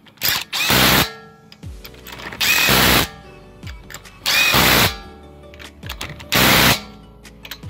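Impact wrench with a socket on an extension driving lug nuts onto a car wheel: four short bursts of about half a second, one per nut, roughly every two seconds.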